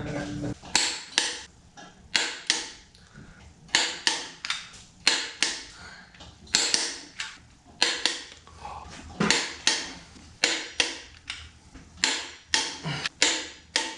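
Torque wrench clicking while the cylinder head nuts on ARP head studs are tightened to spec: a run of sharp metallic clicks, each ringing briefly, roughly one every half second to a second.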